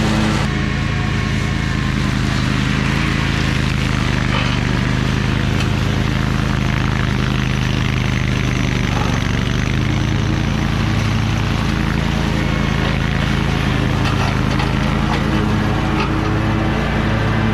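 Toro Titan Max zero-turn lawn mower running steadily while mowing, its engine hum and spinning deck blades holding an even pitch and level.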